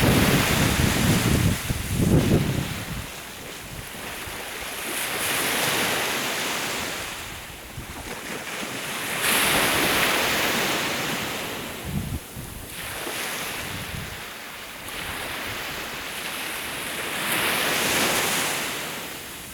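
Sea waves washing onto the shore, the surf hiss swelling and falling away every few seconds, with wind buffeting the microphone in the first few seconds and again briefly about twelve seconds in.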